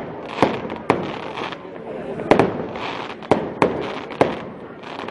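Aerial fireworks shells bursting over a continuous crackle: about eight sharp bangs at irregular intervals, some in quick pairs.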